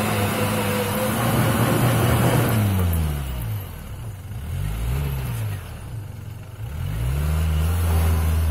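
Off-road 4x4 SUV engine held at high revs under load, then revved up and down in several swells as the driver works the throttle through an off-road obstacle.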